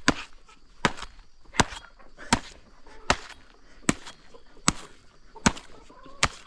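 Panga (machete) chopping into a banana stalk: nine sharp, evenly spaced chops about three-quarters of a second apart.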